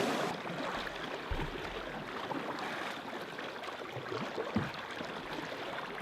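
Choppy lake water splashing and lapping, with two low thuds, one about a second in and one past the middle.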